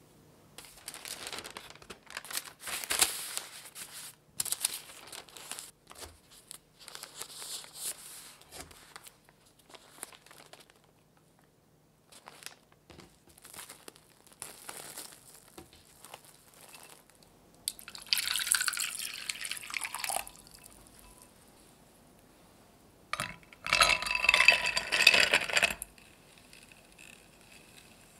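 Baking paper rustling and crinkling in bursts as it is rolled and wrapped around a roll cake, with two louder stretches of crinkling in the second half.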